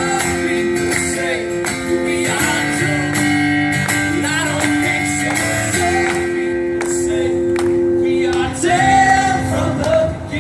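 Live band playing a song: strummed guitar under sustained chords, with some singing.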